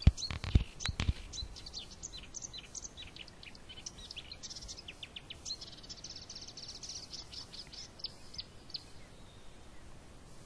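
Birds chirping and singing in quick runs of short high notes, with a few sharp knocks in the first second; the song thins out near the end.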